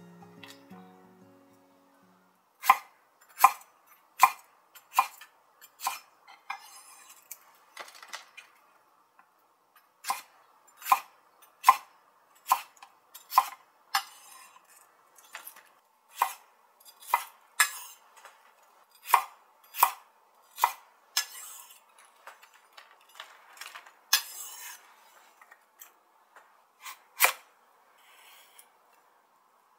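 Kitchen knife chopping onion and then carrot on a wooden cutting board: a string of sharp knocks as the blade strikes the board, about one or two a second with short pauses between runs.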